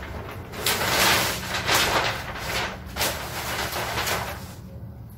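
Large flip-chart paper sheets being lifted and turned over the top of the pad, rustling and crinkling in a series of swishes that die away near the end.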